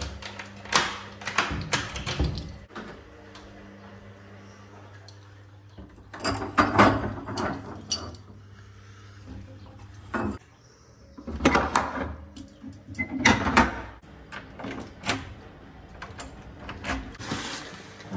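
Several bursts of household knocks and clatter, with a low steady hum underneath.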